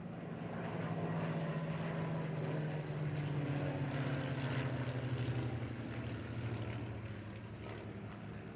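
Piston engines of WWII fighter aircraft in a flypast: a steady engine drone that swells about a second in, holds strongest through the middle, then drops slightly in pitch and eases off as the aircraft pass.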